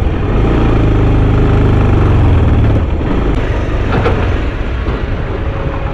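Motorcycle engine running while riding, a steady engine note that gives way about three seconds in to a rougher, noisier engine and road sound.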